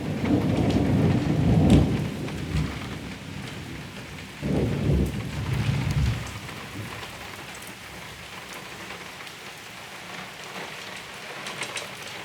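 Thunder rumbling over steady rain: one rumble fading out in the first couple of seconds, then a second rumble about four and a half seconds in, after which the rain carries on alone.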